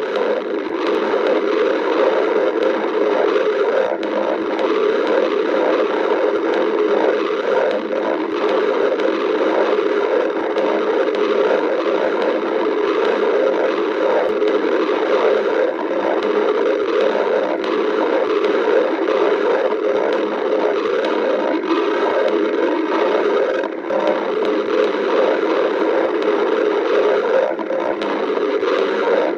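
Stomach growling, a steady gurgling rumble without pauses, from a hungry stomach.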